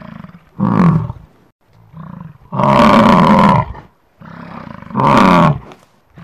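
American bison bellowing: three loud, deep roars, the middle one the longest, each led in by a quieter, lower grunt.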